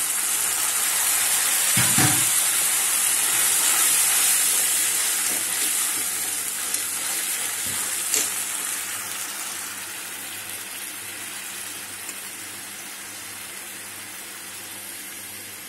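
Water poured into hot oil with fried onions, green chillies and curry leaves in a kadhai, sizzling loudly at first and then slowly dying down to a softer hiss. Two sharp knocks come about two seconds in and again around eight seconds.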